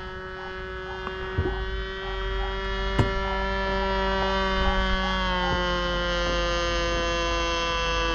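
A radio-controlled Cessna 182 model airplane's engine running steadily with an even hum. It grows a little louder about two seconds in, and its pitch drops slightly about five seconds in.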